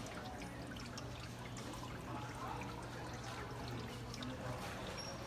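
Artificial rain inside a vintage Rolls-Royce sculpture: water sprinkling and trickling with scattered small drips, over a steady low hum.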